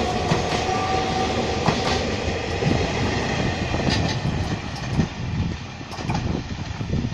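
Taiwan Railways EMU3000 electric multiple-unit train running past at low speed: a steady rumble of wheels on rail with scattered clicks over the rail joints. It grows fainter about halfway through as the train pulls away.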